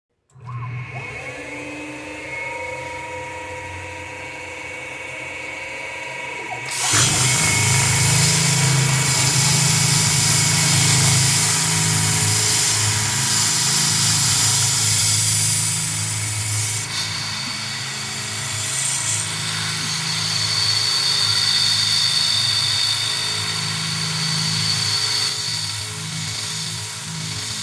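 CNC milling machine's spindle running with an end mill cutting into an aluminium part. About seven seconds in, the sound turns suddenly much louder as the tool bites harder into the metal, and the cutting noise then rises and falls as the tool path goes round.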